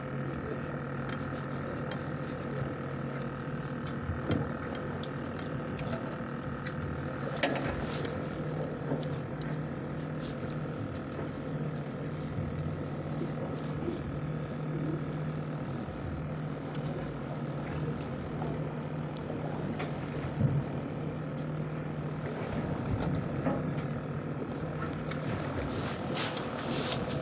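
Steady hum of a fishing boat's onboard machinery running, with a few brief knocks.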